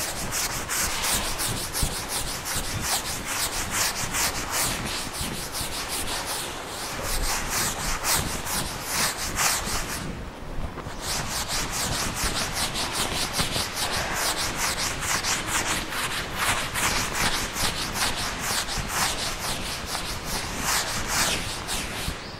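Handwriting strokes scratching across a writing surface, several short strokes a second, with a pause of about a second near the middle.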